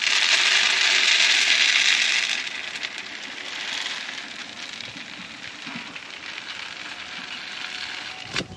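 Chicken feed pouring out of the gated outlet of a DIY feed barrel. It starts as a loud, hissing rush for about two seconds, then eases to a quieter steady trickle, with a short knock near the end.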